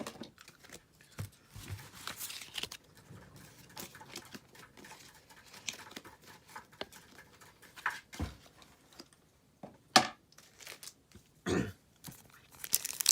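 Trading cards and foil booster-pack wrappers being handled: scattered rustles, taps and crinkles, with a few sharper crackles near the end.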